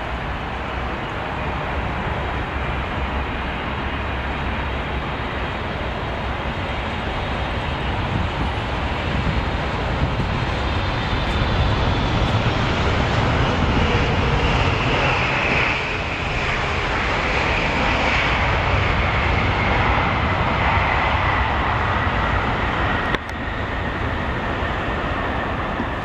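Jet engines of a Boeing 777 on final approach passing low: a steady rumble that grows louder about halfway through, with a high whine that slides down in pitch as the airliner goes by. A sudden short dip breaks the sound about three seconds before the end.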